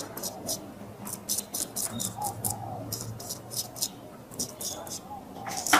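Straight razor scraping stubble off a lathered cheek and jaw in short, quick strokes, about three or four a second, with one louder stroke near the end.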